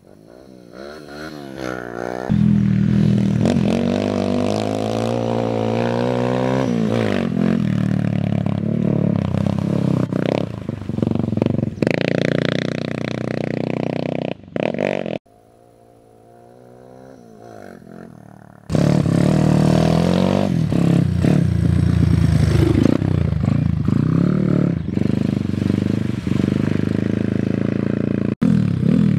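Off-road motorcycle engines revving hard as riders ride through mud; over the first two seconds a bike's engine rises in pitch as it approaches. The sound cuts off suddenly about fifteen seconds in, runs lower for a few seconds, then comes back loud with another bike revving.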